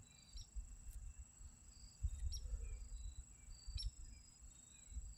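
Faint outdoor ambience: a steady high-pitched insect trill, with short bird chirps and ticks scattered through it and a low irregular rumble at times.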